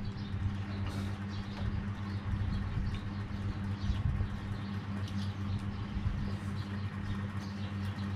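Eating sounds: metal spoons clinking and scraping against ceramic bowls and plates, with soft chewing and mouth sounds, over a steady low hum.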